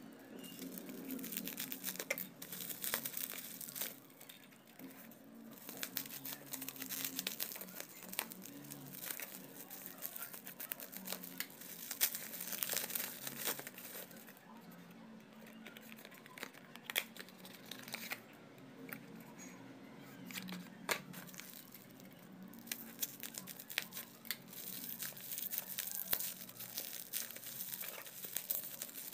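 Plastic bubble wrap crinkling and rustling as wrapped items are handled and pulled out of a cardboard box, with many irregular crackles coming and going.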